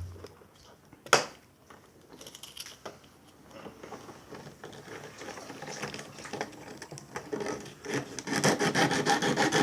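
A sharp knock, then rapid, repeated scraping and rubbing strokes, like filing or rasping, that grow louder toward the end.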